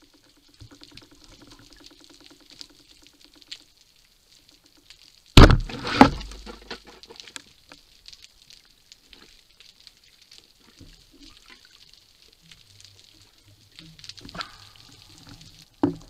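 Underwater shot of a Matador speargun: a sudden loud crack as it fires, then a second loud hit about half a second later, trailing into a low rumble.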